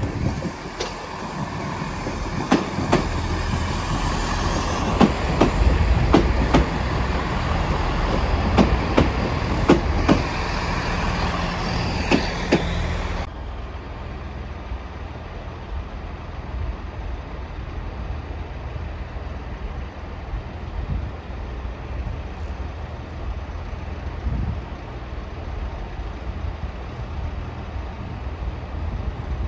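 Turbo diesel multiple unit passing close by, its engine rumbling and its wheels clacking sharply over rail joints and points, often in pairs. About 13 seconds in the sound cuts abruptly to a quieter, steady low rumble of station ambience with a train still in the distance.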